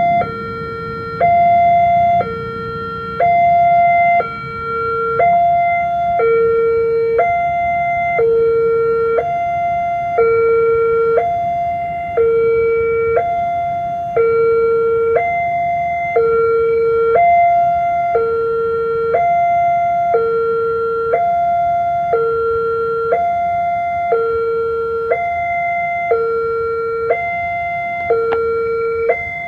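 Railway level crossing warning alarm sounding: an electronic two-tone signal that alternates between a higher and a lower note, each held about a second, warning that a train is approaching.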